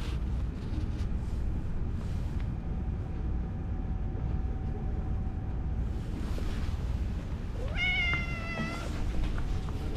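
A cat meows once, a single call about a second long that falls slightly in pitch, over a steady low rumble.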